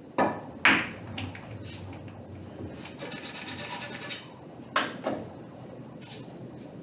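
Pool shots: the cue tip strikes the cue ball and balls click together sharply, twice under a second in. About three seconds in, a pocketed ball rattles quickly for about a second as it rolls through the table's ball return, then another shot gives two more clicks near five seconds.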